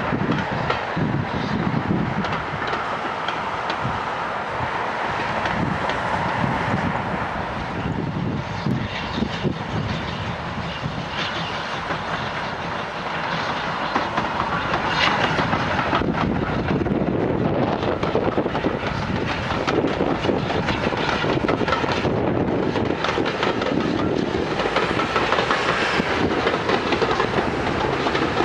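Steam-hauled passenger trains passing on a heritage railway. First a rake of coaches runs by with its wheels clattering over the rail joints. Later, from about halfway, a steam locomotive working a train of coaches is heard, a little louder.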